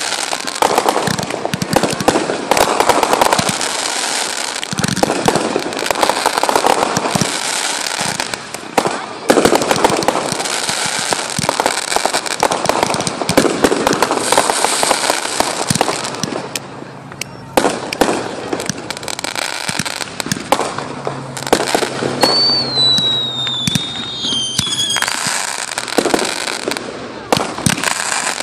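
Aerial fireworks bursting overhead in a dense stream of bangs and crackling. A little past two-thirds of the way through, a screamer whistles for about three seconds, falling in pitch.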